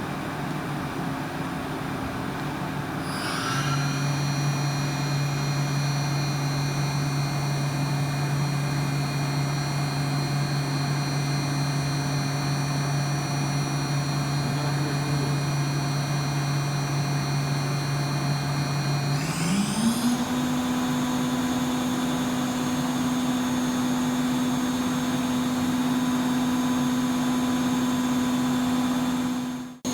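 DECKEL MAHO DMC 635V vertical machining center running with a steady hum; a steady spindle whine starts about three seconds in, then rises quickly in pitch about nineteen seconds in and holds at the higher speed.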